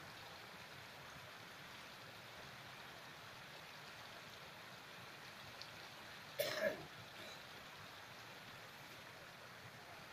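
Faint steady hiss of outdoor background, broken once about six and a half seconds in by a short throat clearing.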